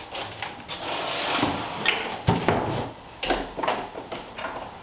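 Cardboard scraping and rustling with a run of irregular knocks and clatters as a lawn mower is pulled out of its shipping box; the sharpest knock comes a little past the middle.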